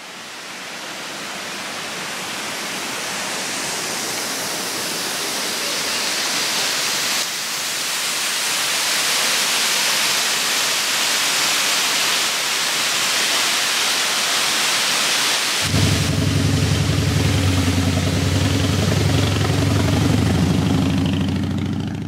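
Steady rushing of the Chorro Doña Juana waterfall pouring down a rock face, fading in at the start. About two-thirds of the way through, the low steady hum of a motor vehicle's engine joins it.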